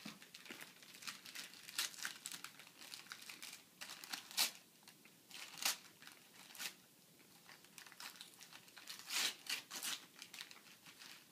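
Christmas wrapping paper crinkling and tearing in irregular bursts as a small present is unwrapped by hand.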